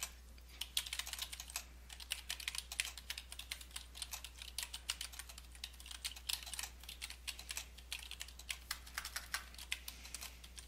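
Typing on a computer keyboard: a quick, irregular run of key clicks, with a brief pause about two seconds in.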